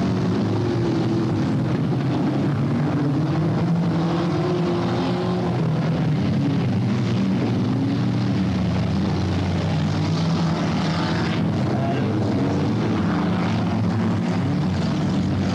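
Stock-car engines racing on a dirt track, several running together. Their pitch rises and falls as the cars accelerate and lift off.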